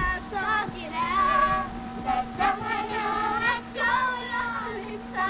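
Children singing a song together, holding and bending notes, over a steady hum.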